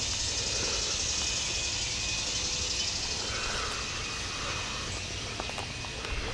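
Insects calling steadily in a continuous high-pitched hiss, over a low rumble.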